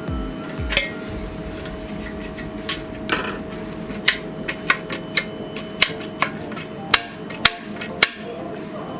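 About a dozen sharp knocks and clicks at irregular intervals, mostly in the middle and later part, over background music.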